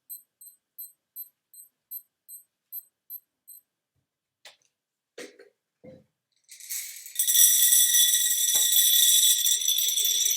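A small watch beeping about ten times in quick even succession, as a live foley effect for the hour striking four o'clock, then a few light clicks and knocks. From about six and a half seconds, a loud continuous jingling rattle of objects being shaken, a foley imitation of rain.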